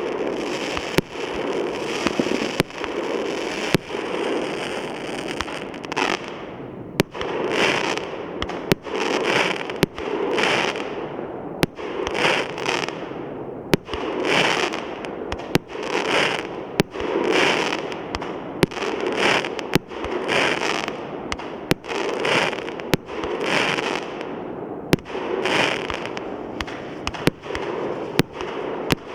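Multi-calibre fireworks cake (Feeriya 'Fireworks No.1', 216 shots) firing in sequence: a sharp report about once a second, each followed by a short crackling hiss.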